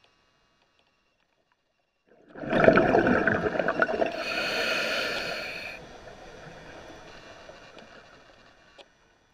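Scuba diver's exhaled bubbles gurgling. They start suddenly a little over two seconds in and fade away over several seconds. A higher hiss joins for about a second and a half in the middle, and the sound stops abruptly near the end.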